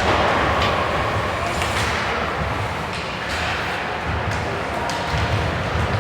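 Ice hockey rink din: a steady murmur of voices in a large echoing arena, with scattered sharp knocks and clacks of sticks and puck on the ice and boards.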